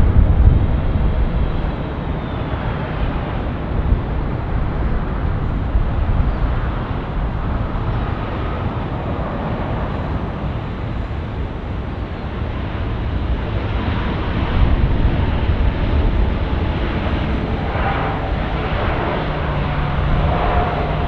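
Jet airliner engine noise: a steady, loud rumble with a hiss above it, swelling slightly about two thirds of the way through.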